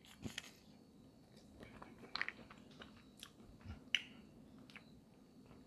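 Quiet eating: soft chewing with scattered short cracks and clicks from snow crab legs being broken and picked at, a few sharper snaps about a quarter-second, two, and four seconds in.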